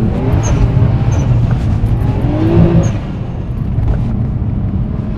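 Nissan Skyline R34 sedan engine running hard at high revs under acceleration, loud and rough, easing slightly about three seconds in.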